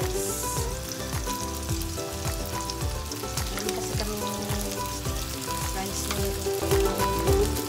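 Frying sizzle in a hot pan as cooked rice is spooned in from a bowl, with spoon-on-bowl scraping and stirring.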